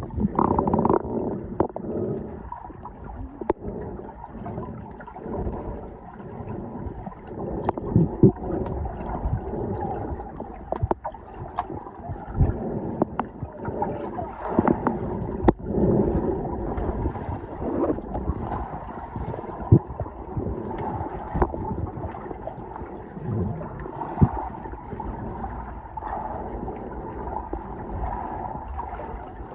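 Muffled underwater sound from a submerged camera while snorkelling: gurgling water and bubbles, with irregular knocks and bumps on the housing.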